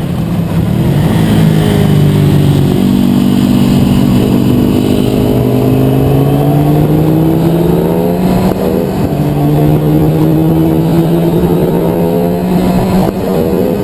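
Motorcycle engine heard onboard at track speed, its note climbing steadily under throttle. The pitch breaks and drops about eight and a half seconds in and again near the end, as at gear changes.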